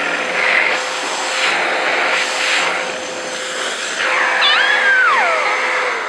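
Vacuum cleaner running with its hose nozzle held to a toddler's hair: a steady whine under rushing air that swells and fades a few times. About four seconds in, the toddler lets out a high squeal that slides down in pitch.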